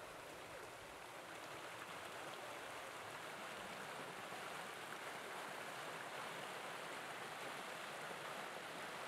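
Water rushing over the stones of a newly opened, stone-lined fish bypass channel, just released through its sluice gate. The flow grows a little louder over the first couple of seconds and then runs steadily.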